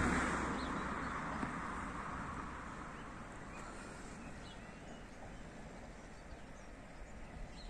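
Road noise of a passing vehicle fading away into quiet countryside, with a few faint bird chirps.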